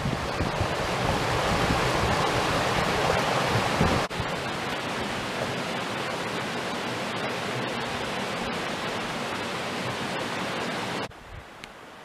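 Mountain stream rushing over rocks into a pool, a steady rush of water. The sound shifts abruptly about four seconds in and drops away sharply near the end, leaving a much quieter background.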